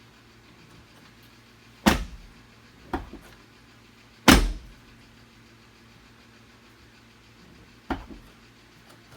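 Four sharp clunks from work on a Jeep Wrangler JK door. The loudest is in the middle, and a weaker knock comes about a second after the first.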